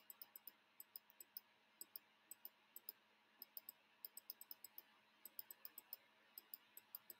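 Faint, quick clicks of a computer mouse button, pressed over and over in small clusters of two to four at uneven intervals.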